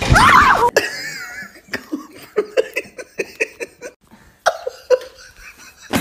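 A loud splash as a dog plunges into a swimming pool, with a voice crying out over it. After a sudden cut, a person laughs and giggles in short bursts.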